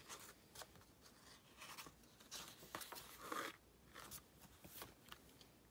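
Faint rustling and soft scraping of a paperback picture book's pages being turned and handled, loudest in two patches around the middle.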